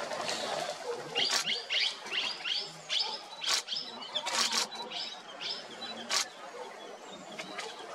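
A bird calling: a quick series of about a dozen short, high, downward-sliding chirps over a few seconds, with several sharp clicks among them.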